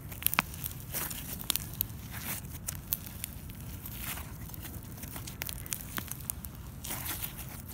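Foam-bead slime (floam) being squeezed and stretched by hand, the foam beads crackling with many sharp, irregular clicks over a steady low rumble.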